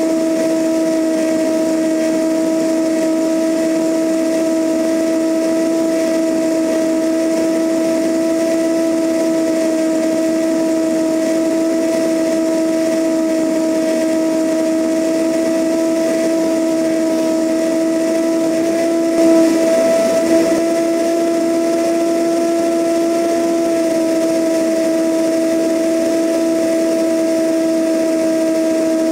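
Cessna 172N in cruise flight, heard from a camera mounted outside the aircraft: a steady engine-and-propeller drone with a held pitched tone, over rushing airflow on the microphone. The tone briefly wavers about two-thirds of the way through, then settles back.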